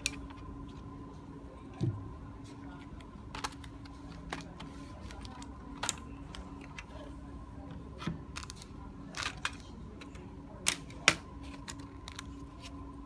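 Plastic clicks and snaps from a laptop's bottom case as its snap-fit clips are pried loose and the cover lifted off by hand: about ten sharp clicks spread out, the loudest about eleven seconds in, over a faint steady hum.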